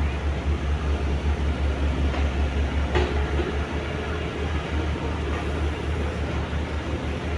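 Excavator diesel engine running with a low, pulsing rumble, and a sharp knock about three seconds in.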